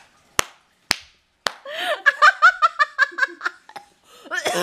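Three sharp smacks about half a second apart, then a woman's burst of laughter in quick pulses lasting about two seconds, with more laughter starting near the end.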